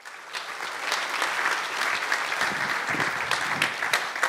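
Auditorium audience applauding: a large crowd clapping steadily, fading in at the start.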